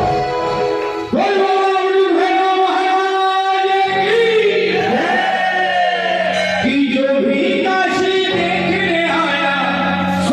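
Hindu devotional bhajan being sung with musical accompaniment. The voice holds long notes that bend and slide in pitch, over a steady low tone.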